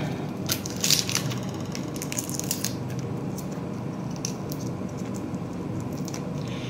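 Light clicks and scrapes of a small kitchen knife peeling garlic cloves, scattered and irregular, over a steady low background hum.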